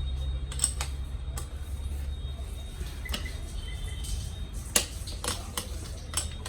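Scattered metal clicks and knocks of a bottom bracket tool working on a bicycle's square-taper bottom bracket, the sharpest a little before five seconds in, over a low steady hum.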